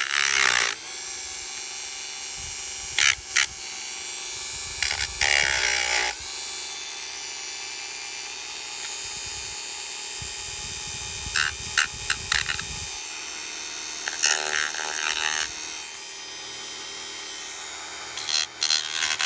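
Dremel rotary tool running steadily while sanding a plastic model locomotive body, the whine broken by several short spells of rough grinding as the bit bites into the work.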